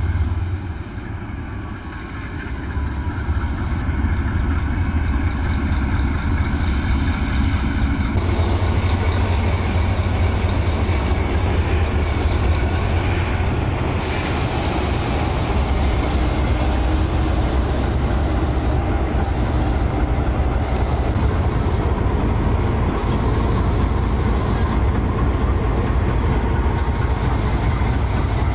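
A long iron-ore train coasting past on a downgrade with its diesel locomotives idling, throttle at zero. From about eight seconds in, a broader steady rumble and clatter of ore wagons rolling over the rails sets in.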